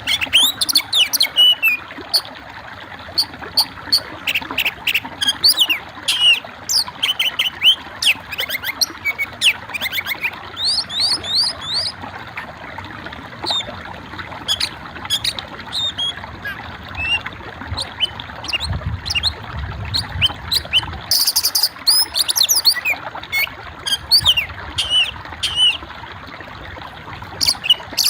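Small birds chirping: a rapid, continuing series of short, high chirps and quick sliding notes over a steady background noise, with a brief noisy burst about three-quarters of the way in.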